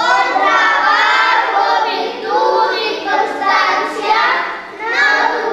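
A group of schoolchildren singing together as a choir, in sung phrases with short breaks between them.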